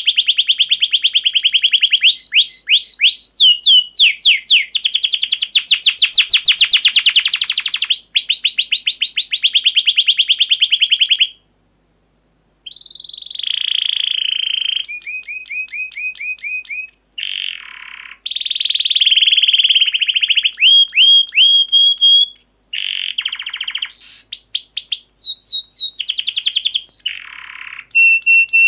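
Domestic canary singing long runs of fast, high trills and rolls. It breaks off briefly into silence about 11 seconds in, then resumes.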